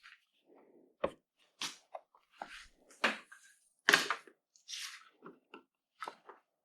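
A series of irregular short knocks, clicks and brief scrapes, with no motor running: hands handling tools and wood. The sharpest knocks come about a second, three seconds and four seconds in.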